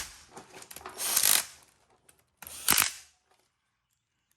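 Two short bursts of mechanical clatter from tools and parts being handled, the second one sharper, then silence for the last second or so.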